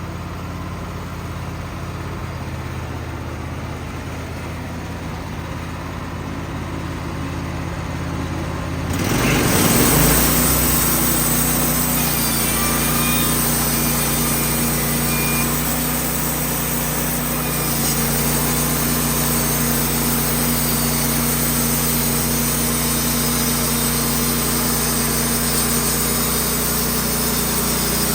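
Wood-Mizer portable band sawmill running steadily. About nine seconds in it grows louder and a hiss joins as the band blade goes to work sawing the birch log, and it then runs on evenly.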